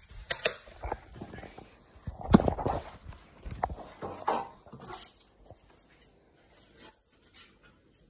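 Scattered knocks and clicks of kitchen handling around a deep fryer, with one louder thump a little over two seconds in and another near four seconds.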